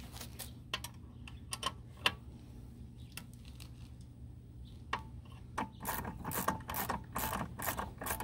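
Metallic clicking of hand tools working on the vehicle: scattered single clicks, then from about six seconds in a quicker run of clicks, roughly four a second.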